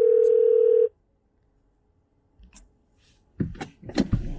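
Telephone ringback tone through a phone's speaker while a call rings out unanswered. A steady tone cuts off about a second in, and after a silent gap there are a few short knocks and rustles near the end.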